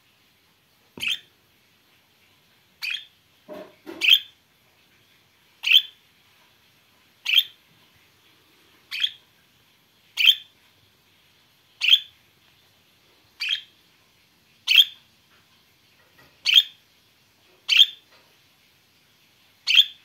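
Pet budgerigar giving short, sharp single chirps, about a dozen of them at a fairly even pace of roughly one every second and a half.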